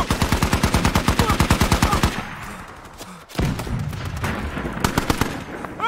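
Rapid automatic gunfire, about ten shots a second, in a long burst that fades away about two seconds in; after a short lull the firing starts again with bursts and scattered shots.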